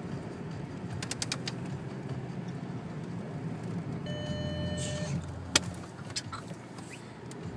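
Car engine running as the car drives and slides on snow, heard from inside the cabin. A few quick clicks and rattles come about a second in, a steady beep lasts about a second around the four-second mark, and a single sharp click follows just after it.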